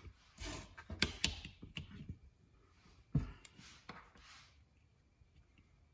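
A run of light clicks and knocks from a clear plastic fret-slot template and a wooden fretboard blank being handled and set down on a wooden workbench, with a louder knock about three seconds in. Two short sliding, brushing sounds as the template is pushed into line.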